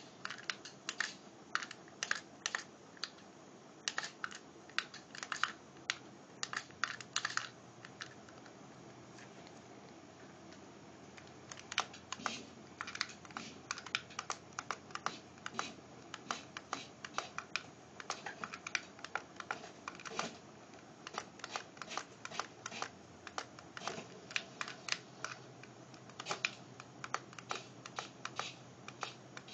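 Rapid, irregular clicking and tapping from a micro RC truck being driven and its controller, in quick runs, pausing for a few seconds about a third of the way in.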